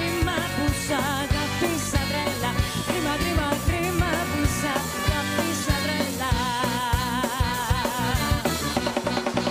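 Live band playing an upbeat Greek pop song, with a drum kit keeping a steady beat and a woman singing over it.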